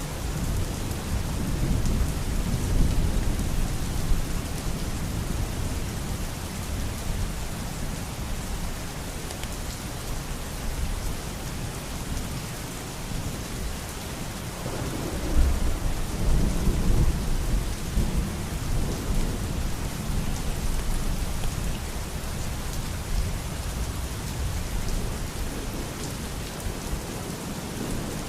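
Steady rain falling, with low rolling rumbles of thunder; the loudest roll comes about halfway through.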